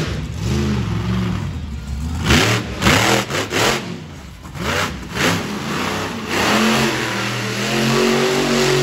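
Monster truck supercharged V8 engines revving hard, the pitch climbing and dropping again and again, with several loud crashes about a third of the way in as a truck runs over crushed cars. Near the end an engine holds a steady high rev.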